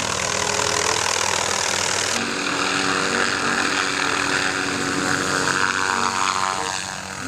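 Small helicopter hovering low, its engine and rotor running steadily.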